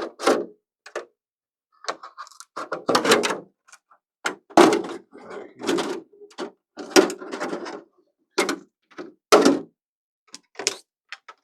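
Scissors cutting through a hard polycarbonate RC car body shell: about a dozen short, irregular snips and crackles of the stiff plastic.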